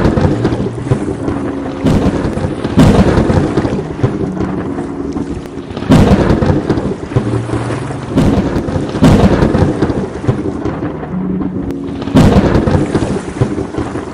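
Thunderstorm: steady rain under rolling thunder, with sudden loud cracks breaking in every few seconds and rumbling away.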